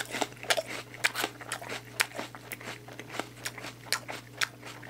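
A person chewing a mouthful of raw apple close to the microphone: crisp crunches, about three to four a second.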